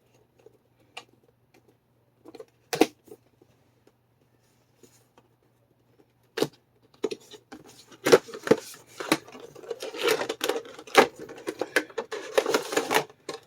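Clear plastic packaging of an action figure being handled: a few scattered clicks and taps, then from about seven seconds in a dense run of crackling and clicking as the figure is worked out of its plastic tray.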